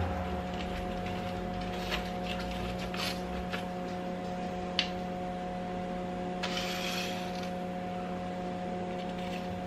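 Knife and spatula working through a baked pie crust in a foil tin: a few sharp clicks and taps and a short crunching scrape about two thirds of the way in, over a steady electrical hum.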